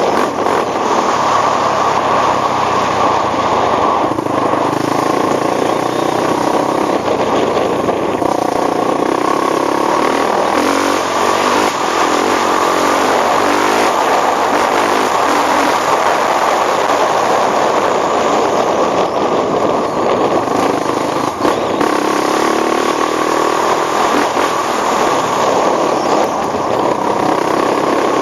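ATV engine running steadily under way, a loud rough drone with slight rises and falls in pitch.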